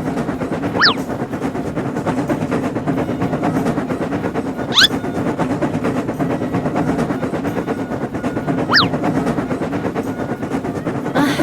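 Cartoon train running sound effect: a steady, rapid rattling clatter of wheels on track, with three short whistle-like chirps about four seconds apart.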